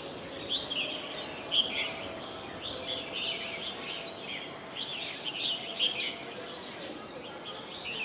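Small birds chirping and twittering in the trees, many short calls overlapping, with a faint steady hum underneath through the middle.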